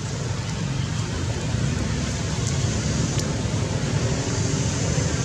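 Steady low rumble with an even hiss over it, unchanging throughout, with no distinct calls or events.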